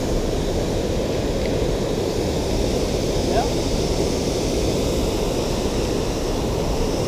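Steady rushing of river water spilling over a small weir, an even low noise with no breaks.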